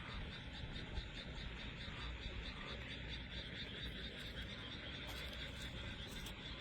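A chorus of frogs calling on a summer night, many overlapping rapid calls forming a continuous, steady din.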